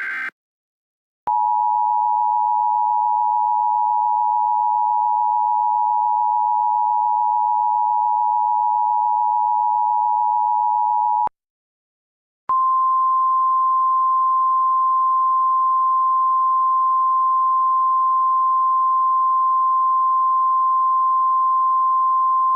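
The Emergency Alert System warning sequence: the end of a SAME digital header burst, then the EAS two-tone attention signal held steadily for about ten seconds. After about a second of silence, the single-pitch NOAA Weather Radio 1050 Hz warning alarm tone sounds steadily, marking a tornado warning.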